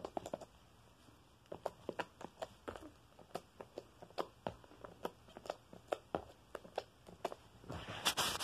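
Fingers poking and pressing sticky glitter-glue slime, giving a run of small wet clicks and pops, a few a second. A louder brushing rustle comes near the end.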